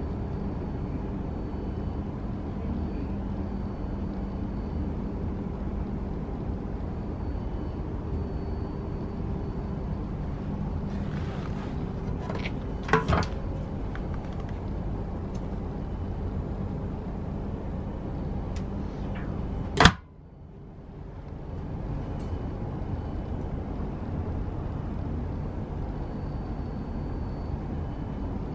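Steady low hum inside a Shinkansen bullet-train car. A couple of sharp knocks come about 13 seconds in, and a single loud click near 20 seconds, after which the hum dips briefly and builds back.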